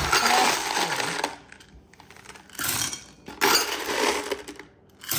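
Peanut butter M&M's poured into a glass mixing bowl, the hard-shelled candies clattering onto the flour and chocolate chips in three separate pours, the longest near the end.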